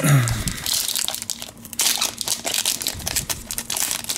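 Foil trading-card pack wrapper crinkling as it is handled and opened, a dense run of crackles.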